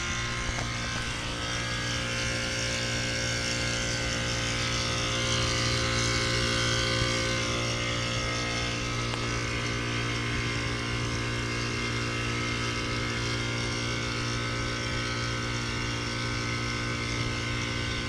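A 1990 York Stellar Series heat pump's outdoor unit running steadily: an even compressor hum with a hiss over it, partway through a defrost cycle.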